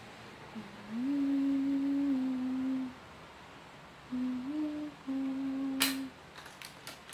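A woman humming a short tune in three phrases, each a few held notes that step up and down in pitch, with short pauses between them. A sharp click comes near the end.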